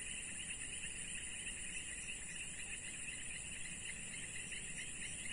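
Chorus of insects such as crickets: a high, continuous buzz with a lower trill of fast, even pulses beneath it.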